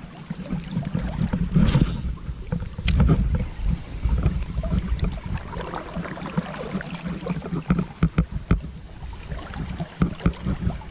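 River water sloshing and splashing, with wind buffeting the microphone in an uneven low rumble and scattered sharp knocks.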